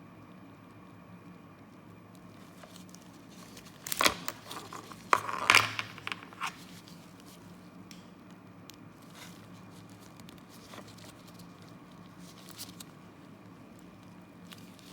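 Withdrawal key working in a padlock's removable core: a cluster of sharp metal clicks and scrapes about four to six and a half seconds in, with faint ticks of handling the lock either side.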